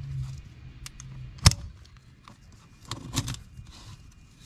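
Sharp metal clicks of locking pliers and bolt hardware while a bolt and nut are fastened on an Argo track cleat. There is one loud click about a second and a half in, then a few lighter clicks around three seconds.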